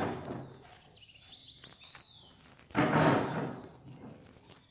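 Heavy PA loudspeaker cabinet thumping and scraping as it is handled and set on a metal speaker stand: one knock right at the start and a louder thump about three seconds in. Birds chirp faintly in between.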